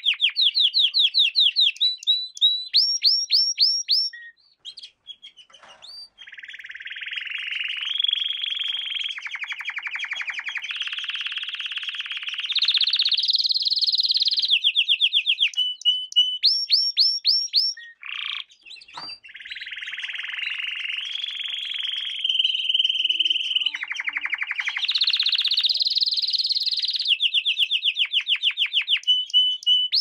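Domestic canary singing a long song of rapid trills, each a fast run of repeated high whistled notes. It moves from one trill to the next at different pitches, with brief breaks about five seconds in and again around eighteen seconds.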